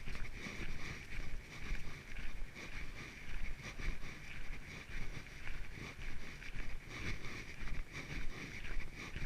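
Footsteps of a person walking on a trail, about two steps a second, with wind rumbling on the microphone.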